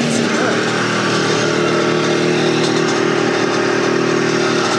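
Rotax 587 two-stroke twin of a 1990 Sea-Doo SP running steadily out of the water, cooled by a garden hose, with water splashing from the hull outlet.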